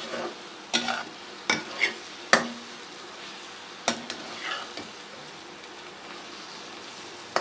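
Arvi (taro root) stir-frying in tomato-onion masala in a pan: a steady sizzle with a spoon scraping and knocking against the pan every second or so. The spoon strokes stop after about four and a half seconds, leaving only the sizzle.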